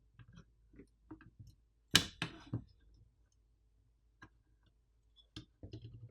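Scattered small clicks and light knocks of a mini PC's fan assembly being handled and lifted out during disassembly. A sharp knock and two or three quick taps about two seconds in are the loudest.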